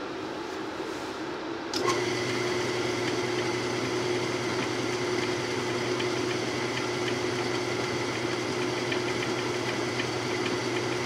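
Small metal lathe running steadily while turning a 6061 aluminium bar. About two seconds in it gets louder and settles into a steady motor hum with a high whine and faint ticking.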